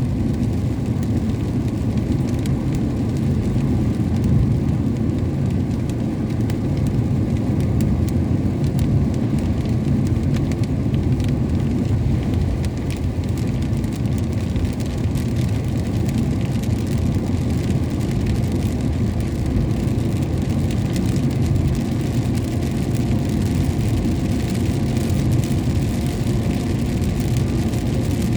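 A vehicle driving on a highway in the rain: a steady low rumble of engine and road noise, with faint scattered ticks of rain.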